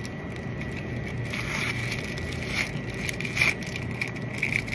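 Thin plastic wrapper of a triangle kimbap crinkling and tearing in short bursts as it is opened, then a bite into the seaweed-wrapped rice ball near the end, over a steady background hum.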